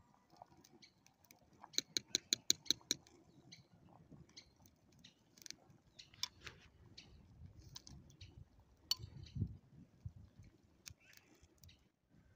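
Light clinks and clicks of a metal ladle against a pot of plum soup and a plate as it is stirred and served, with a quick run of about eight clicks about two seconds in and a low thump about three quarters through.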